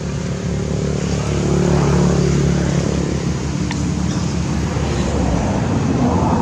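A motor vehicle's engine running close by, a steady low hum over road noise, which dies away about five seconds in.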